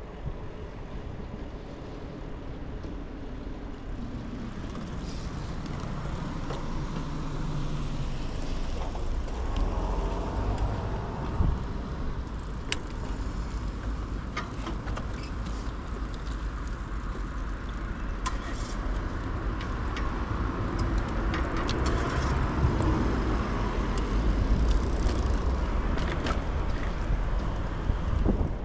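Steady rumble of a bicycle ride, wind on the microphone and tyres rolling on the path, with motor traffic going by. It swells about a third of the way in and again for a while near the end.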